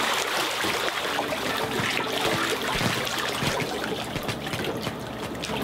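Hot tub water splashing and churning, with many small irregular splashes and crackles.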